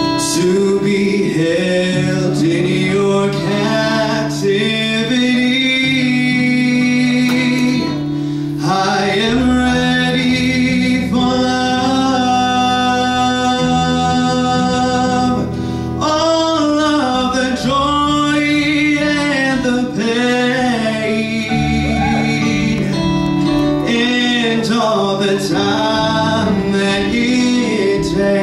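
A man singing a song into a handheld microphone over instrumental accompaniment, with long held notes in the middle.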